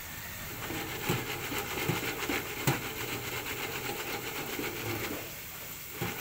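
Wire fry basket shaken in a stainless deep fryer, giving a rapid metallic rattle with three louder clanks, over French fries sizzling in hot oil. The rattle starts about half a second in and stops about five seconds in, leaving the sizzle.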